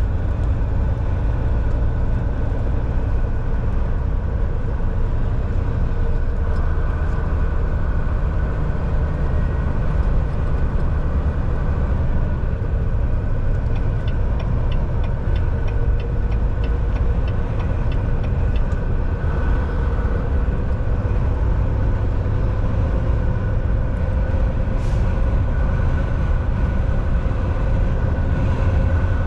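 Volvo semi-truck on the move: a steady, loud low engine and road rumble with a faint steady whine over it. About halfway through, a short run of light, quick ticks.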